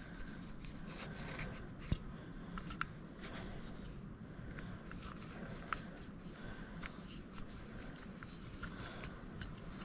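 Faint rubbing with scattered light clicks and ticks: small metal parts of a Ruger LCP Max pistol being wiped and handled during cleaning.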